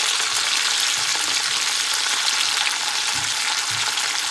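Oil and chicken fat sizzling steadily in a hot cast-iron skillet as a whole chicken sears over the burner.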